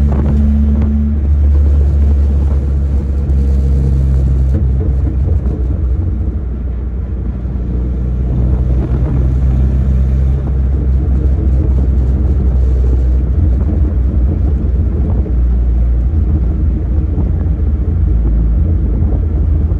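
Chevrolet S10 pickup's four-cylinder engine running steadily as the truck drives, with low road noise beneath it; the engine note softens about halfway through.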